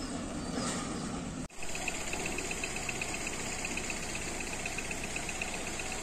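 A vehicle engine running steadily, with a quick, even high-pitched pulsing over it. The sound drops out for an instant about a second and a half in.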